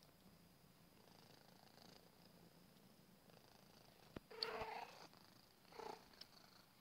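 Small domestic cat purring steadily and faintly, close to the microphone. A click about four seconds in starts a short burst of louder noise, and a smaller one follows about a second later.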